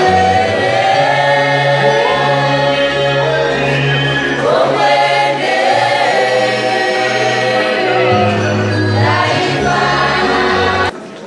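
Choir singing in several-part harmony, with long held low notes beneath the upper voices; the singing breaks off abruptly near the end.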